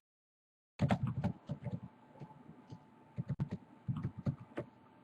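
Typing on a computer keyboard: quick, irregular keystroke clicks that start after a moment of dead silence near the start.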